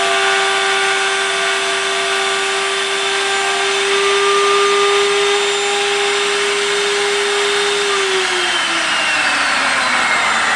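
Electric trim router running at high speed with a steady whine. About eight seconds in, its pitch drops steadily as the motor slows.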